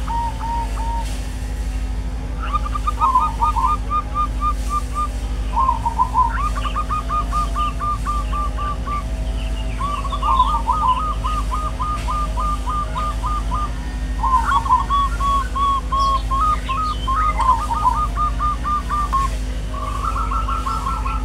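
Birds calling: repeated runs of short, clear whistled notes, about five a second, in several overlapping series, over a steady low hum.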